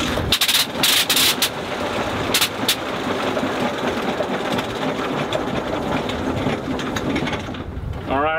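Sopwith Pup's rotary engine catching from a hand-swung propeller. It fires with loud irregular bangs in the first second or so, then runs raggedly for several seconds and dies out near the end. The crew take it to be running only on its prime and not pulling fuel.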